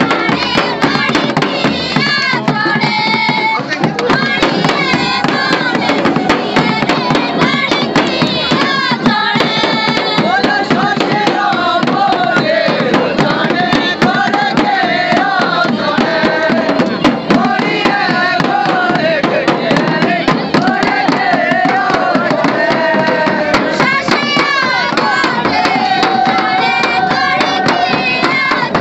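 Loud Himachali folk song, with a wavering sung melody over instruments and a steady percussion beat.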